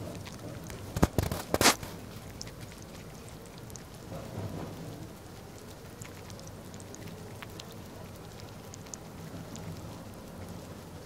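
Steady pattering water with scattered small ticks and splashes at the surface of a fish pool, and a few sharp loud knocks about a second in.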